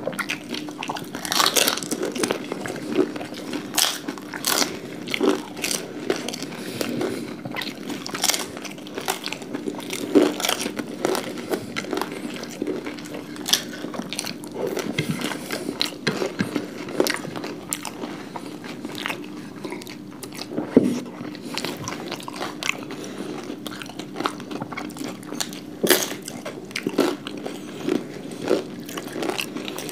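Close-up crunching and chewing of crisp papdi chaat and panipuri puris, irregular sharp crunches coming every second or so over a faint steady hum.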